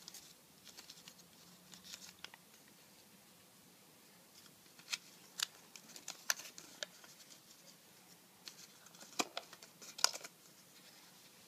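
Pleated paper fan sections being handled and pressed together: scattered crisp paper rustles and small sharp taps, busiest around the middle and again near the end.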